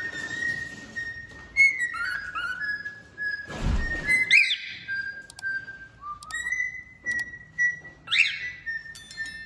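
Male cockatiel singing: a run of clear whistled notes, some held and some sliding in pitch, broken by a harsher rising note about four seconds in and again about eight seconds in. A dull thump about three and a half seconds in.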